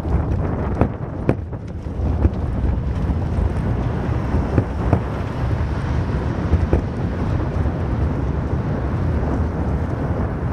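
Wind buffeting the microphone over the low rumble of a Mango velomobile rolling along city pavement, with a few sharp knocks scattered through it.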